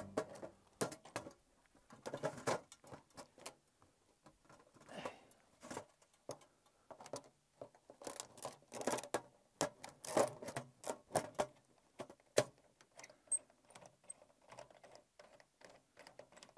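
Sheet-metal stovepipe being fitted and worked onto a small tent wood stove's flue collar: irregular metallic clinks, scrapes and knocks as the pipe and its clamp are handled.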